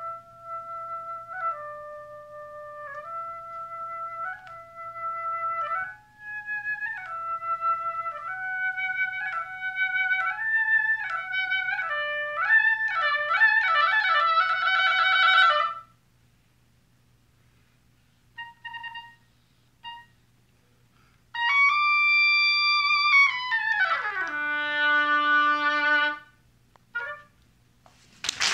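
Solo oboe playing unaccompanied: a rising run that quickens into fast trills, a pause, a few short detached notes, then a long high note that slides down to a low held note. Applause starts right at the end.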